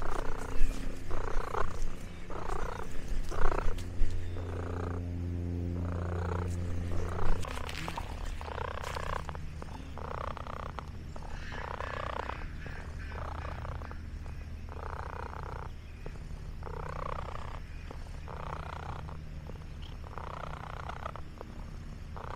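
Domestic cat purring close up, in a regular rhythm of breaths about once a second, over a low steady hum that fades about a third of the way in.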